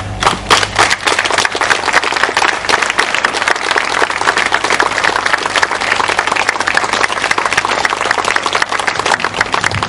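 Audience applauding: a few loud claps right at the start, filling into dense, steady clapping from about a second in.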